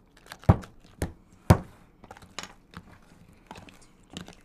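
Three sharp knocks about half a second apart, followed by lighter clicks and scraping. These are kitchen utensils and containers on a wooden counter while cookie dough is stirred in a plastic tub and a spice bottle's shaker lid is opened.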